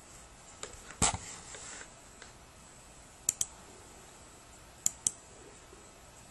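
Computer mouse clicks: two quick double-clicks, one pair about three seconds in and another nearly two seconds later, after a duller knock about a second in, over faint room hiss.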